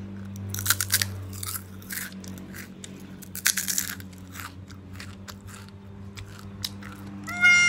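Biting into and chewing a crispy okra chip: a run of sharp crunches, loudest about a second in and again about three and a half seconds in, over a low steady hum.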